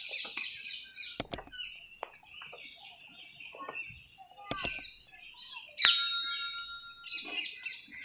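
Many birds chirping and calling together in trees, a dense mass of quick high notes. A few sharp clicks cut through, the loudest about six seconds in.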